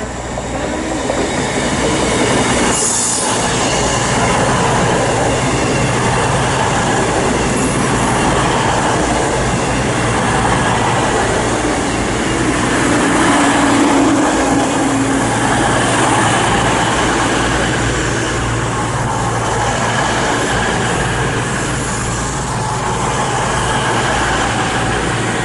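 Two coupled Class 221 Voyager diesel-electric trains arriving at a platform, their underfloor diesel engines running with a steady low hum over rail noise and wheel squeal.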